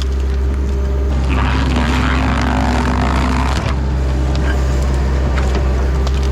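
Takeuchi TL10 compact track loader's diesel engine running steadily under load. From about a second in until nearly four seconds in, a rushing, hissing noise with a held hum sits on top of the engine, then stops suddenly.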